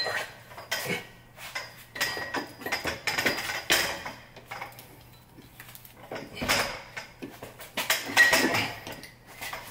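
Scattered metal clanks and knocks as a differential housing is handled and raised into place under the car, bumping against the subframe; the loudest knock comes late on.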